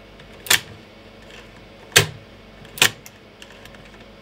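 Sharp clacks from the loading and eject mechanism of an opened Sony MP-F52W-30 3.5-inch floppy drive being worked by hand. There are three: one about half a second in, then two close together around two and three seconds in. The mechanism's jamming metal slide is freshly greased with white lithium grease and still not moving perfectly.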